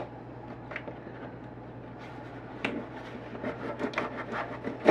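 Cardboard shipping box being opened by hand: scattered scrapes, rubs and light clicks of cardboard, with a sharp click at the start and a louder knock at the very end.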